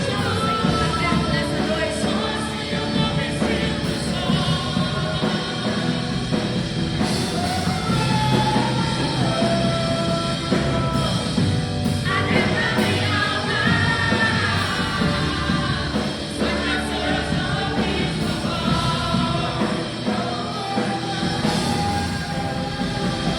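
Worship band playing a song with sung vocals over full band accompaniment.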